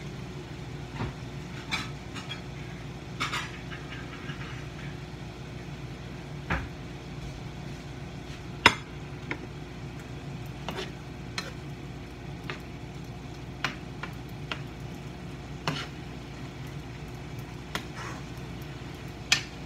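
Stir-frying chicken strips and cabbage: a cooking utensil clinks, taps and scrapes against a frying pan at irregular moments, the loudest knock about halfway through, over a steady low hum.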